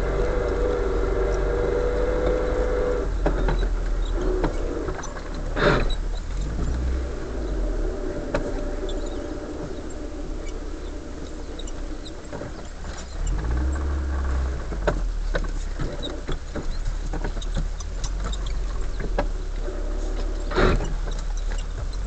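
Car engine running at low speed with steady road rumble as the car drives a rough road, with scattered small rattles and two loud sharp knocks, one about six seconds in and one near the end.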